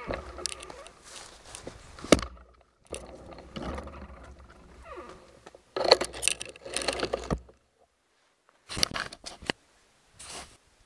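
Rustling and scraping noise in uneven bursts with sharp clicks, from a camera being carried and handled while walking through dry grass and reeds. It drops out twice near the end.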